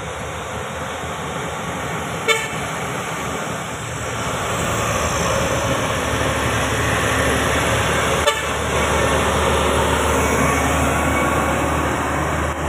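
CAMC heavy tanker truck driving past; its diesel engine and tyre noise grow louder as it draws near. Two short horn toots sound, the first about two seconds in and the second about six seconds later.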